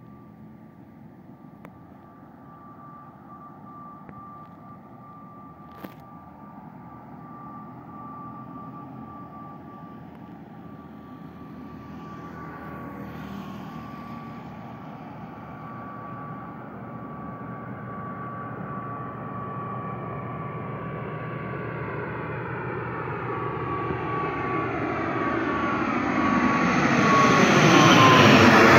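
ATR 72-600 turboprop airliner coming in to land, its Pratt & Whitney PW127M engines and propellers giving a steady high drone over a rushing engine noise. The sound grows louder throughout and is loudest near the end as the plane passes close by, where the drone's pitch dips slightly.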